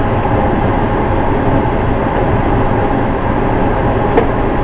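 Manual can opener being cranked around the rim of a can, a steady grinding noise.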